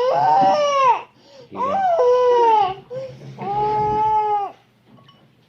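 A young child crying in three long, loud wails, each about a second long.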